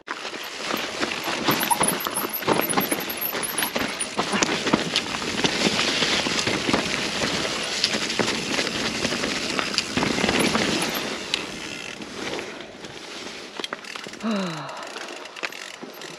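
Mountain bike moving over rough woodland trail: a dense crunching and rattling of tyres and bike on dirt and debris, full of small clicks, easing off in the last few seconds.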